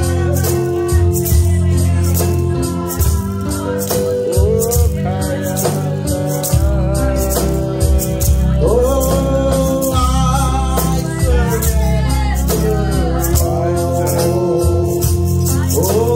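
A man and a woman singing a gospel worship song together over an electronic keyboard, with a strong bass line and a steady percussion beat.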